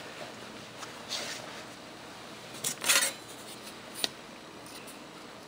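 Handling noise as a ruler is brought up and laid against a ballistic gelatin block: a short scraping rustle about a second in, a louder one about three seconds in, then a sharp click just after four seconds.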